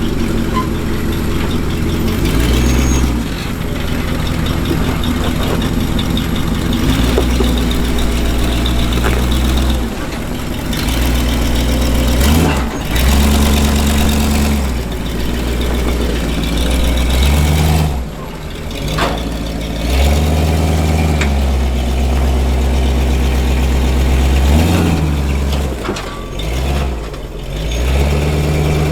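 Jeep CJ-5 engine revving up and dropping back toward idle again and again while crawling an off-road trail, its note rising and falling several times.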